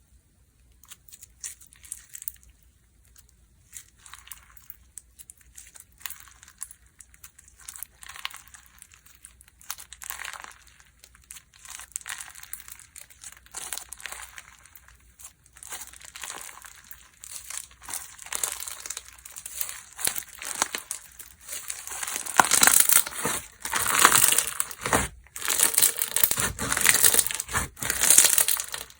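Hands squeezing and stretching slime, making dense crackling and crinkling sounds that grow much louder from about two-thirds of the way through.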